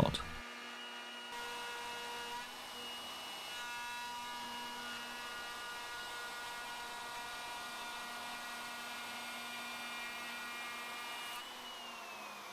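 Electric plunge router with a bearing-guided straight cutter running at a steady whine as it is pushed along a jig to cut a dado slot in an oak shelf board. Near the end it is switched off and its pitch falls as the motor winds down.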